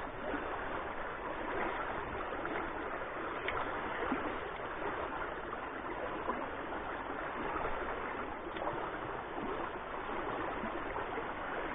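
River water running steadily over a shallow stream bed, an even rushing with no distinct splashes.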